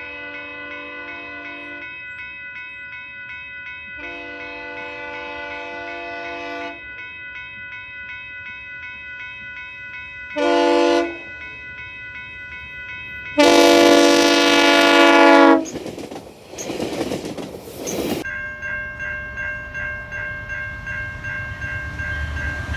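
Locomotive air horn sounding the grade-crossing signal (long, long, short, long), each blast a chord of several notes, the last long blast much louder as the train nears. It is followed by the rush and rumble of the train passing close by.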